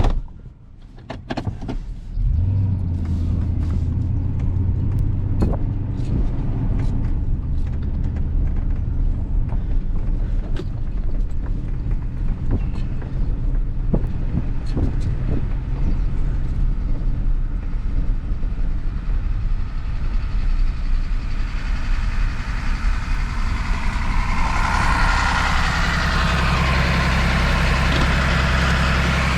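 A sharp knock, then about two seconds later a vehicle engine comes in and runs steadily with a low hum. A hiss grows under it near the end.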